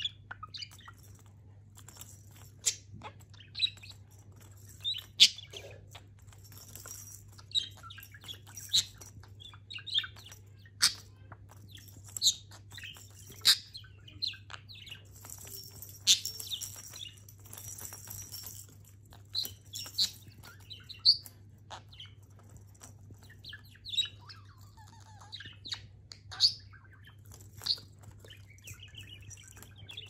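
A budgerigar playing with a rotating pine toy: sharp clicks and knocks every second or two as it pecks and turns the plastic balls on their metal arms. The bells inside the balls jingle now and then, with short budgie chirps in between.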